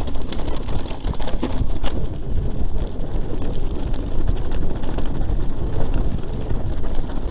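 Wind buffeting the microphone: a loud, steady low rumble with scattered sharp ticks throughout.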